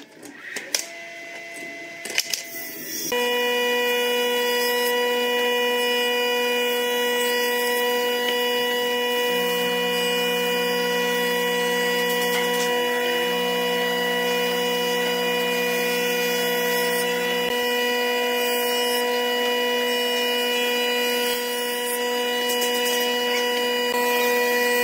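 A few knocks of wood in the first seconds, then from about three seconds in a woodworking jointer starts up and runs with a steady whine.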